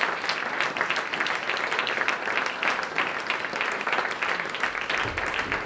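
Theatre audience applauding: a dense, steady patter of many hands clapping at once.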